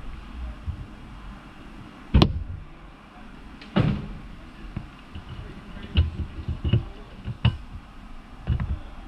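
About six sharp knocks and clacks from a mechanic handling the car, the loudest about two seconds in, over a low steady hum.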